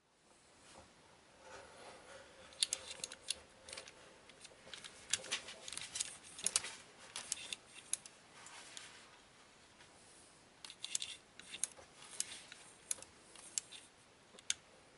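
Plastic clicks and clatter of a K'nex coaster car and track parts being handled, in two irregular runs with a short pause between them.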